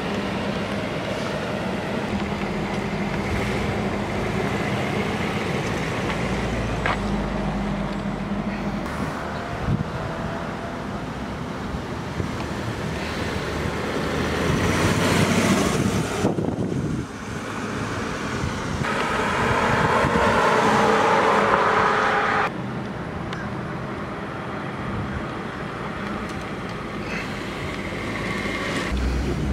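A 1962 Ford Thunderbird's 390 cubic-inch V8 driving on the street, heard from the roadside: a steady engine hum with tyre and road noise. It grows louder around the middle as the car passes, and the sound changes abruptly a couple of times.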